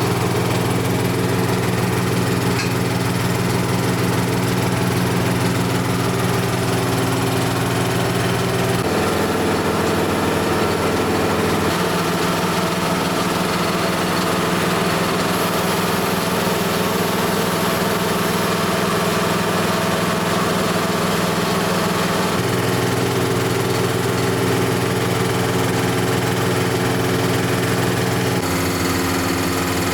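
An engine running steadily, its pitch jumping abruptly a few times.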